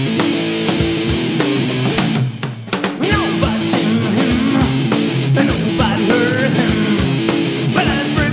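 Rock music: electric guitar over a steady drum beat. The band thins out briefly a little after two seconds, then comes back in with cymbals added.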